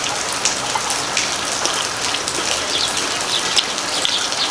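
Steady rain falling, with a few short ticks over the even hiss.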